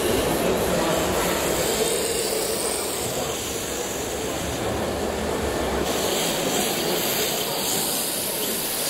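Steady hall noise of RC drift cars running on an indoor track, mixed with the general hubbub of a busy exhibition hall. The high hiss gets brighter about six seconds in.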